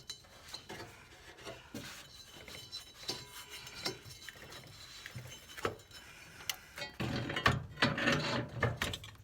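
Scattered clicks, knocks and scraping of hand tools on metal while bolts are worked loose on a Toro 265-6 lawn tractor, getting busier and louder near the end.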